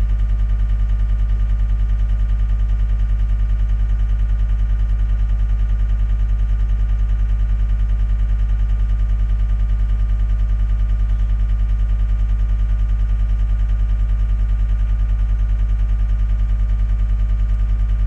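John Deere track skid steer's diesel engine idling steadily, heard from inside the cab, with an even low hum that does not change.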